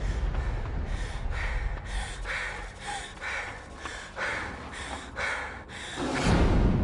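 Ragged, frightened breathing: short gasping breaths about two a second, over a steady low rumble that swells loudly about six seconds in.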